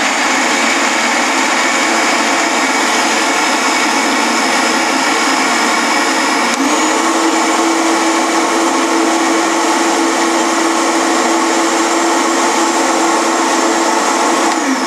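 High-speed blender running steadily, blending soaked almonds and water into almond milk. About halfway through its tone shifts and a steady lower hum comes in.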